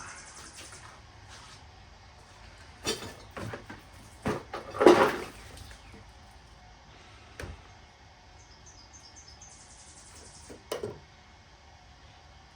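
A few separate knocks and clatters of metal parts and tools being handled, the loudest a short clatter about five seconds in.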